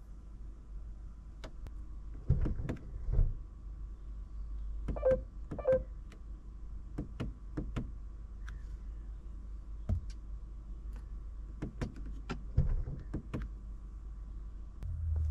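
Irregular clicks and taps of a car's interior controls being worked, over a low steady hum, with a few heavier thumps about two to three seconds in.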